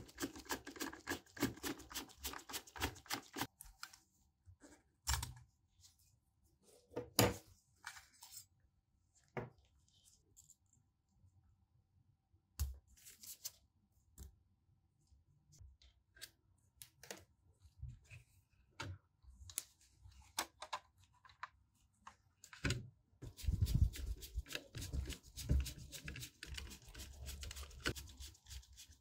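A precision screwdriver turning small screws in a laptop hard-drive caddy, a quick run of fine clicks. Then scattered clicks and rustles as a laptop I/O board and its ribbon cable are handled. In the last few seconds the screwdriver works the screws of the CPU heatsink, with denser clicking and low knocks.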